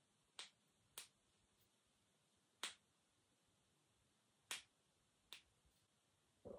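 Near silence broken by five short, sharp clicks at irregular intervals.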